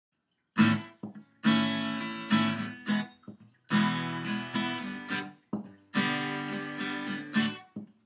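Acoustic guitar strummed: chords struck with sharp attacks and left to ring and fade, starting about half a second in, with brief stops between chord changes.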